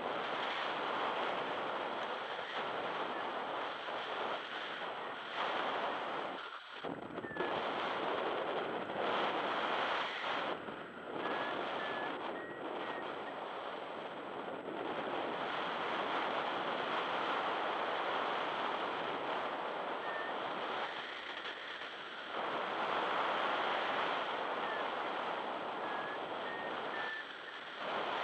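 Wind buffeting the camera microphone in uneven gusts, a steady rushing noise that swells and drops back several times.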